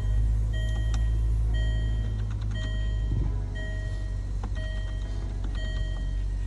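Car engine running with a steady low rumble, while a warning chime beeps about once a second.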